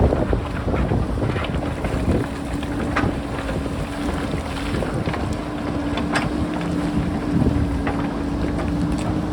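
JCB backhoe loader's diesel engine running under load, with a steady whine setting in about two seconds in and a few sharp knocks of rock against the bucket. Wind buffets the microphone.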